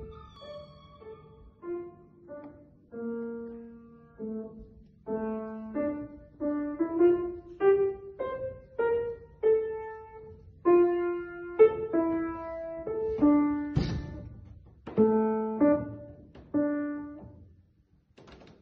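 Piano playing a slow melody, notes struck one after another and left to fade, with one sharp low hit about fourteen seconds in.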